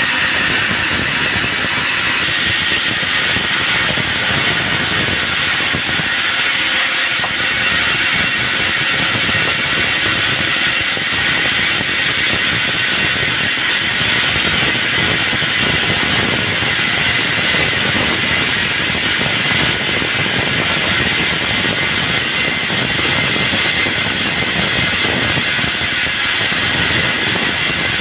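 Band sawmill running steadily, its blade sawing through a log, a continuous loud hiss-like machine noise without breaks.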